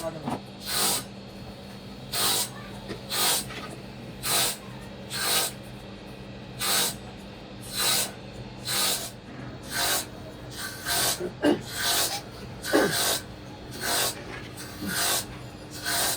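Wood being rasped by hand: a rough scraping stroke roughly once a second, coming a little faster for a few strokes near the end, with a couple of light knocks among them.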